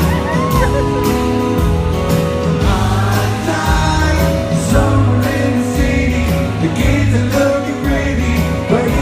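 Live rock band playing, with singing and a steady drum beat.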